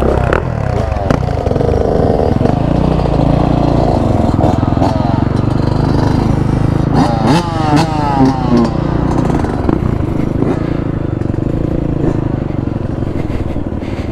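Yamaha XT250's single-cylinder four-stroke engine running steadily as the bike rides a dirt trail, revving up about seven seconds in, with scattered knocks and rattles from the bike over rough ground.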